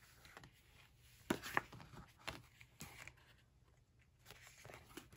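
Faint rustles and light taps of sticker-book pages being handled and turned by hand, with a few sharper paper ticks, the loudest two close together about a second and a half in.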